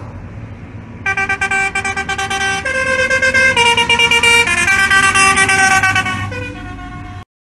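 Musical air horn on a tractor playing a tune of held notes that step up and down in pitch, over the tractor's diesel engine running. The horn starts about a second in and cuts off just before the end.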